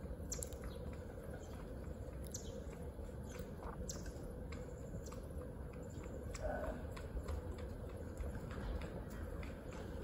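Faint outdoor background: a steady low rumble with scattered small clicks and a few brief high chirps.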